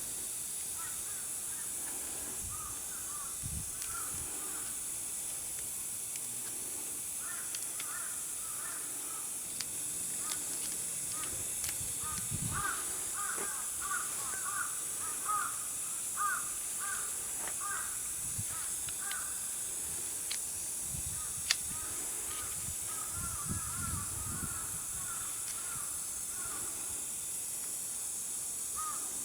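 Birds calling outdoors in runs of short repeated calls, over a steady hiss. There are a few dull low thumps, around the middle and again later on.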